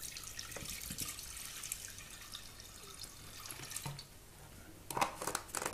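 Acetone being poured into a glass container, a soft steady trickling splash. Near the end come a few sharp clicks and knocks.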